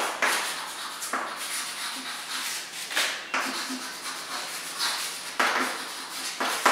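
Chalk writing on a chalkboard: a run of scratchy strokes, each starting sharply, with short gaps as the letters are formed.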